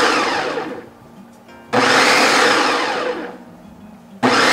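Food processor pulsed in short bursts, mixing cheese into pesto: the motor whirs up sharply with each press and winds down when released. One pulse is dying away, another starts about two seconds in, and a third starts near the end.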